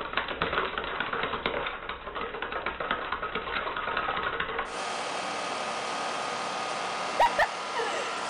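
A small dog's claws tapping and scratching rapidly against a basketball and a hardwood floor. A little past halfway this gives way to the steady whir of an outdoor air-conditioner condenser fan blowing up through its grille, with two sharp, loud short sounds near the end.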